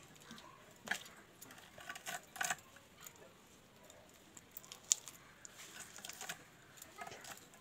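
Faint, scattered clicks and short scrapes as a raw fish is gutted and cleaned by hand against a fixed kitchen blade, with the wearer's bangles clinking now and then. The sharpest click comes about five seconds in.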